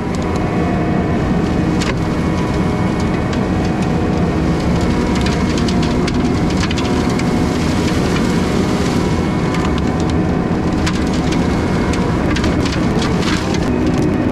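Skid steer running a Brush Hound FH Series flail mower at work, its drum spinning as it mulches brush and wood, with many sharp cracks of splintering wood and flying debris over the steady machine noise.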